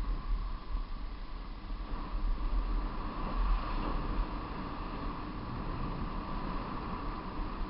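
Wind buffeting the microphone of a vehicle-mounted camera on a downhill ride, a steady deep rumble under an even rush of moving-vehicle noise with a constant mid-pitched hum.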